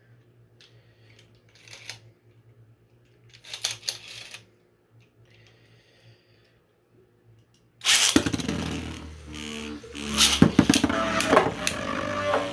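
A few faint plastic clicks and rattles. Then, about eight seconds in, two Beyblade spinning tops, one of them 3D-printed, are launched and start spinning in the stadium, whirring loudly with repeated sharp knocks as they clash.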